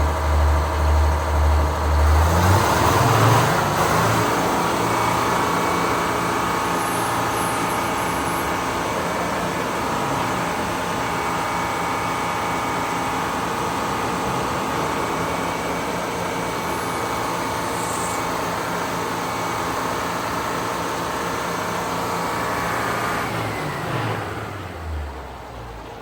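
Engine idling with a lumpy beat about twice a second, revved up about two seconds in and held at a steady higher speed, then throttled back down near the end.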